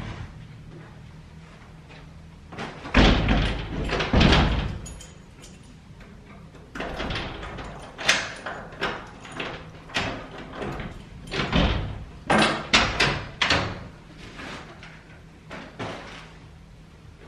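Wooden front door being pushed shut with heavy knocks about three seconds in, then a run of sharp clicks and clunks from its handle and lock being worked.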